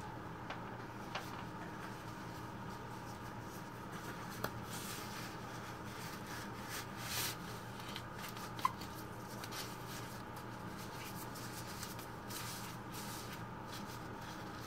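Clear disposable plastic gloves being pulled onto the hands: soft crinkling and rubbing of thin plastic, with a brief louder rustle and two small clicks, over a faint steady hum.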